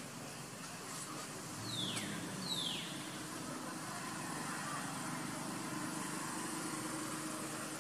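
Two short, high animal calls about two seconds in, half a second apart, each sweeping quickly down in pitch, over a steady low background hum.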